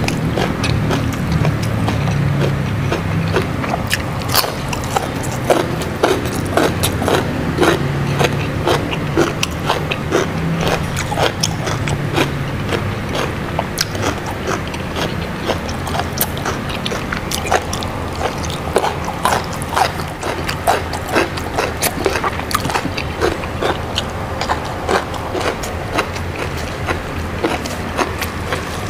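Close-miked eating: a person biting and chewing crunchy raw vegetables, with many irregular sharp crunches and wet mouth clicks, over a steady low hum.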